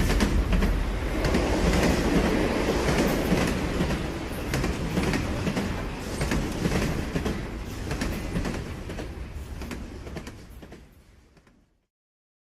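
A train rolling on rails, its wheels clicking over the rail joints amid a steady rumble. It fades away over several seconds and is gone about eleven and a half seconds in.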